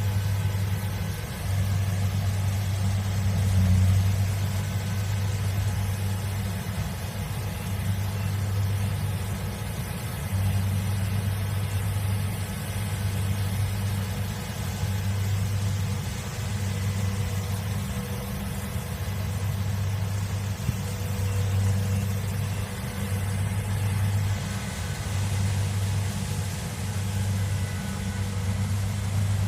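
Kubota DC70 Plus combine harvester's diesel engine running steadily, a low hum that swells and eases every second or two.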